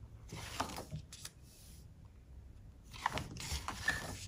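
Paper pages of a notebook being turned, two rustling flips with small papery ticks, one shortly after the start and one near the end.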